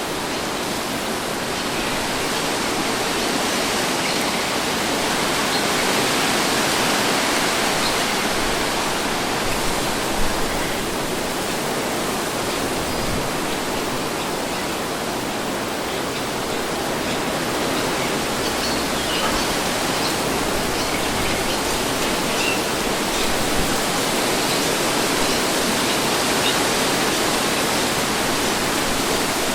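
Wind blowing steadily as a broad, even rush with no distinct gusts, swelling gently and easing off a couple of times.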